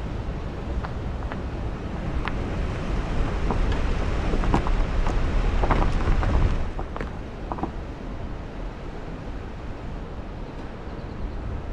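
Wind buffeting the microphone of a vehicle driving along beach sand, a low rumble under a hiss of noise with scattered clicks. It is louder in the first half and eases about six and a half seconds in.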